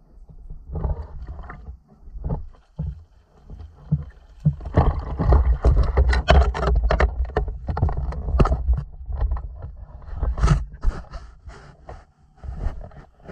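Knocks, scrapes and splashes as a landing net with a camera fixed to its handle is swung about and dipped into the lake, over a heavy low rumble of handling noise. It is busiest in the middle stretch and settles near the end.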